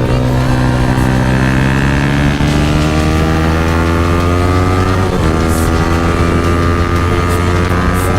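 Motorcycle engine through an aftermarket exhaust under steady acceleration, its pitch rising slowly. It breaks briefly for an upshift about five seconds in, then pulls on again.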